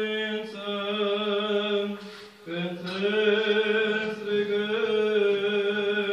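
Orthodox liturgical chanting: a voice sings long notes held on a nearly steady pitch in two phrases, with a short break for breath about two seconds in.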